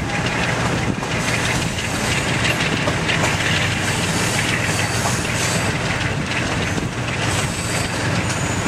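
Excursion train rolling along the track, heard from aboard a passenger car: a steady rumble and rattle of wheels on rail over a low, even drone.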